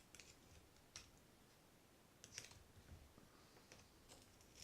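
Faint, scattered clicks of a curved metal pick working at the spool of a Penn 260 Slammer spinning reel, prying off the black drag cap, over near-silent room tone.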